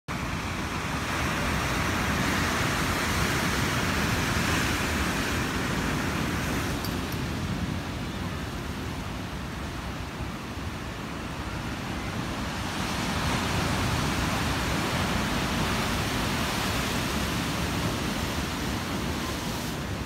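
Ocean waves breaking over rocks below a sea cliff: a steady wash of surf noise with a low rumble, swelling twice as sets of waves crash in.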